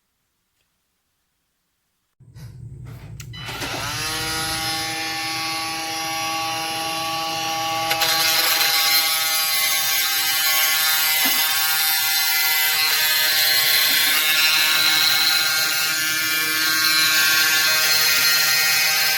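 Cordless oscillating multi-tool switched on about two seconds in, its motor winding up to speed with a rising whine and then running steadily. About eight seconds in it gets louder and harsher as the blade bites in, cutting through nails.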